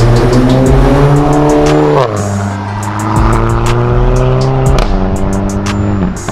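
Volkswagen MK7 GTI's turbocharged four-cylinder, with its muffler and a catalytic converter removed, accelerating hard past: the exhaust note climbs, drops at an upshift about two seconds in and again near five seconds, then climbs again. Background music with a beat plays over it.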